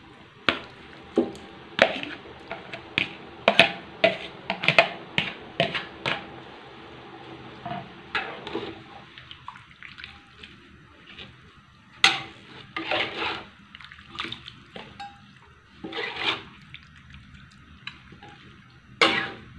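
Metal spatula scraping chopped banana blossom out of a plastic basin into a wok of coconut-milk broth: quick clinks, scrapes and splashes as the pieces drop in, over the first six seconds or so. Then the spatula stirs the wok in a few scattered scrapes against the metal and sloshes of the liquid.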